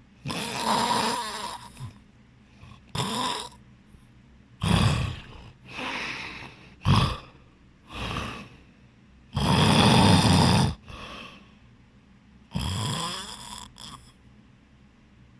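A person snoring loudly in their sleep, in irregular snores of different lengths with quiet breaths between: some short and sharp, the longest and loudest about ten seconds in.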